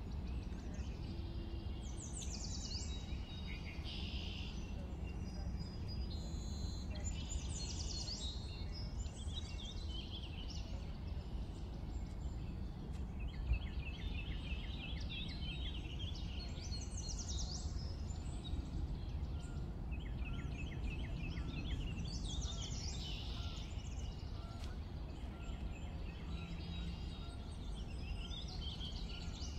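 Birds chirping and calling, with short sweeping notes and fast trills, over a steady low rumble.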